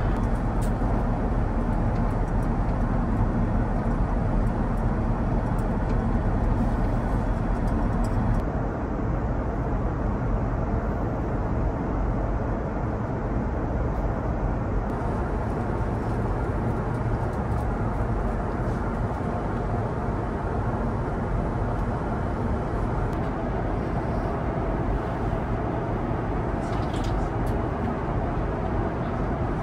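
Steady cabin noise of an Airbus A350-900 in cruise: an even low rush of airflow and engines, stepping down slightly in level about eight seconds in.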